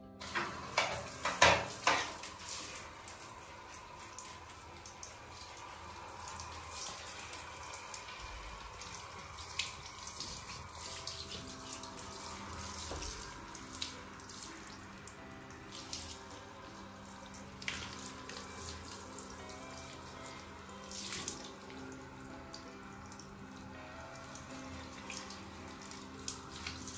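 Water running and splashing onto a tiled shower floor as a soapy baby monkey is rinsed, with a few sharp splashes in the first couple of seconds and smaller ones scattered after.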